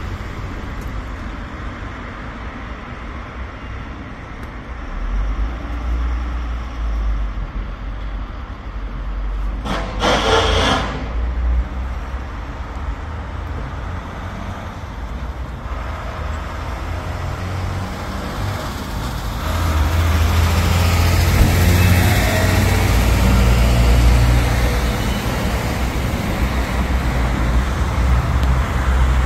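Low vehicle rumble that swells and grows louder about twenty seconds in, with a brief louder noise about ten seconds in.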